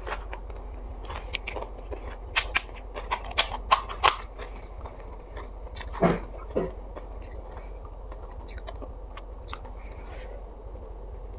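Crisp panipuri shells being bitten and chewed, with a run of sharp crunches about two to four seconds in and two duller sounds around six seconds.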